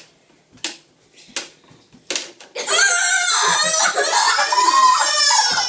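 A few sharp clicks from the Pie Face game's crank handle being turned, then, once the spring-loaded hand has hit her with whipped cream, a girl shrieks loudly for about three seconds.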